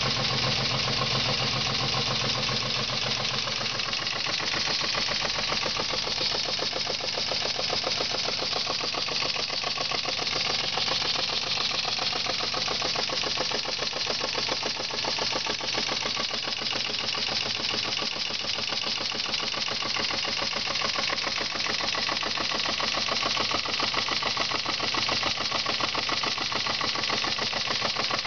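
Small live-steam model engine running fast on wet steam: a rapid, even chuffing of exhaust beats with a steady steam hiss.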